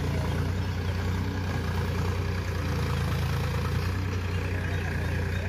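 Powertrac tractor's diesel engine running steadily while it pulls a rotavator through a muddy paddy field, a constant low hum.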